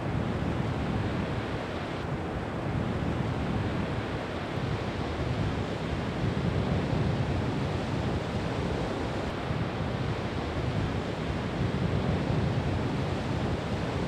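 Ocean surf: waves breaking and whitewater rushing in a steady wash of noise that swells and eases every few seconds.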